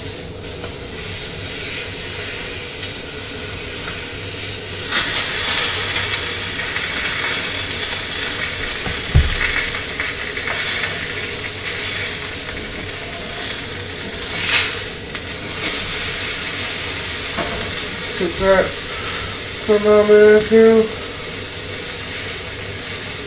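Venison steak searing in a hot pan, a steady sizzle that grows louder about five seconds in, with a sharp spit of fat near the middle.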